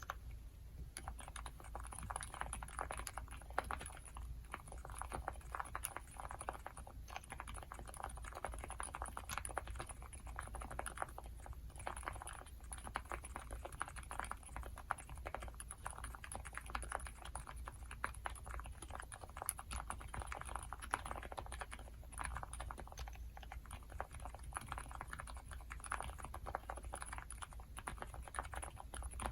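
Continuous fast typing on a mechanical keyboard fitted with silent linear switches (Gateron Silent Clear stems in nylon housings), with brass plate, gasket mount and full foam: a soft, muted patter of keystrokes with short pauses between runs, and no sharp click or clack.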